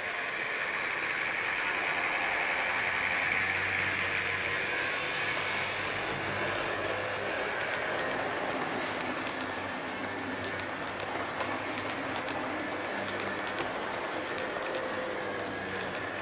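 HO-scale Roco DB class 110 model electric locomotive and its coaches running on model track: a steady motor whine and the hum of the wheels rolling, with light clicks over the rail joints. The whine is strongest in the first few seconds.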